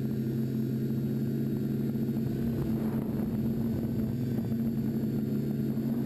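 TBS Discovery quadcopter's electric motors and propellers humming steadily in flight, heard from its onboard camera, with two even tones, one low and one a little higher.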